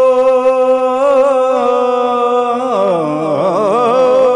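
A man singing an Urdu naat solo, holding one long steady note that starts to waver after about a second, then sliding down through a wavering, ornamented run from near three seconds in.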